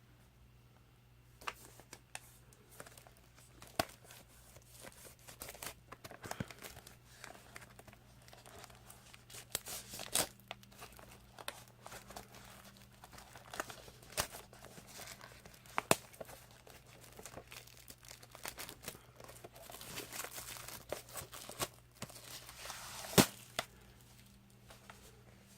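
Plastic shrink wrap being torn and peeled off a Blu-ray steelbook case: irregular crinkling with scattered sharp snaps, the loudest snap near the end. A faint steady hum runs underneath.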